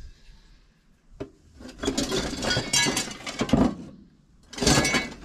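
Loose metal parts clinking and rattling in a cardboard box as they are rummaged through: a single click about a second in, a long spell of clinking, then a shorter burst near the end.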